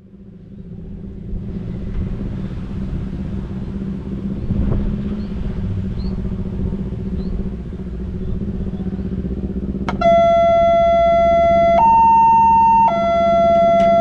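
Steady low engine hum, then about ten seconds in a railroad level-crossing alarm starts: a loud electronic two-tone siren switching between a low and a higher tone every second or two, warning of an approaching train.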